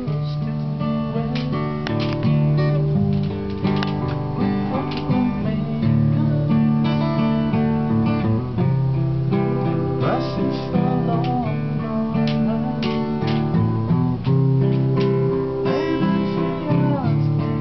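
Acoustic guitar music: strummed chords with a wavering melody line over them.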